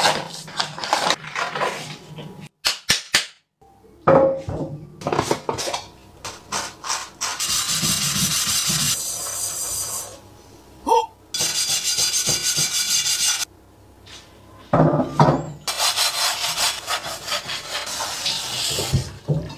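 A run of cleaning sounds: plastic packaging rustling and clicking, a sponge scrubbing the inside of a stainless steel saucepan, and tap water running into the pan near the end.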